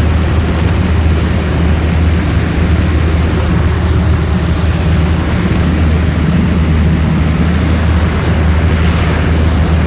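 Propeller aircraft engine droning steadily under power, heard from inside the cockpit of a Yak aerobatic plane in flight, with a low engine hum over a constant rush of airflow.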